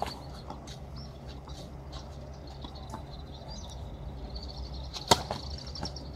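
A tennis racket striking the ball once, a sharp crack about five seconds in, over a steady low background hum. A faint high rapid ticking runs shortly before and after the hit.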